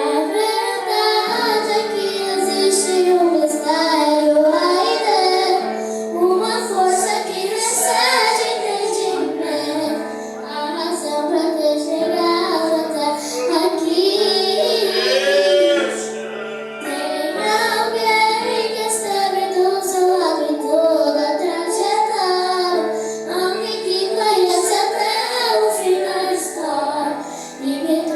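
A high female voice singing a worship song over instrumental accompaniment with sustained low notes, with vibrato on a long held note about halfway through.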